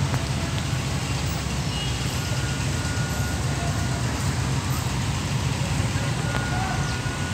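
Steady low rumble of road traffic and vehicle engines, with a faint thin tone heard now and then.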